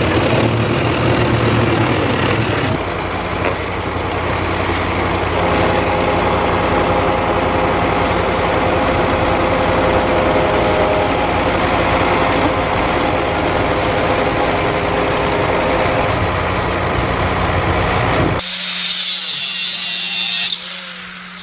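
A machine engine running steadily with a low hum, and a brief stretch of high-pitched noise near the end.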